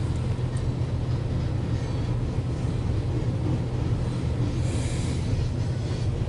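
Loaded coal hopper cars of a freight train rolling steadily past, a continuous low rumble of wheels on rail, heard from inside a car's cabin.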